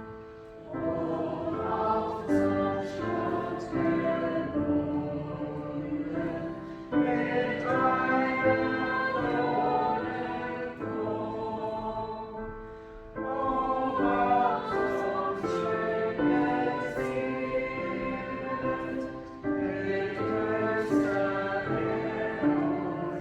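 Church choir singing a slow hymn in several parts, in phrases a few seconds long with short breaths between them.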